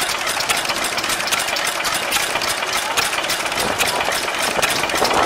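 Ruston Hornsby stationary engine running steadily, a fast, even clatter of mechanical knocks.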